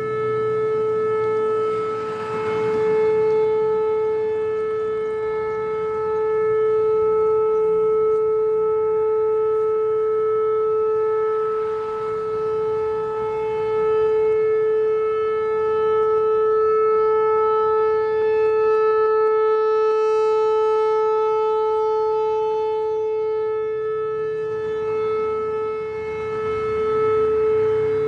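Whelen Vortex R4 outdoor warning siren sounding its steady Alert signal: one held pitch that never rises or falls, swelling and fading slowly in loudness as the rotating head sweeps past.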